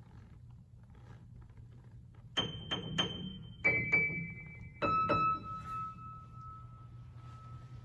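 High notes struck on a piano, seven in all: three on one high note, two a step lower, then two on a lower note that rings on for about three seconds. Each group is lower in pitch than the one before. A low steady hum runs underneath.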